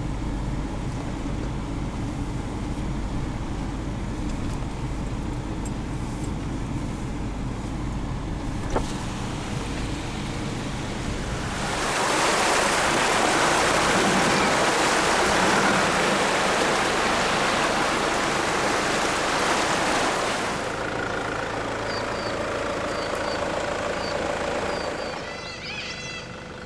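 Four-wheel drive vehicle running along a rough dirt track with a low steady rumble and a single sharp knock. About twelve seconds in, a loud steady rushing hiss takes over for about eight seconds, water at a creek crossing, before dropping back to the quieter vehicle sound. Birds chirp briefly near the end.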